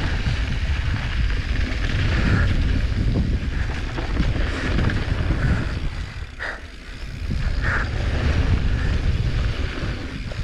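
Wind buffeting the microphone over the rumble and rattle of a mountain bike riding down a dirt trail, easing briefly about six and a half seconds in.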